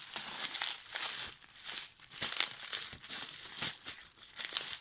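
Packaging crinkling and rustling as it is unwrapped by hand, in uneven bursts.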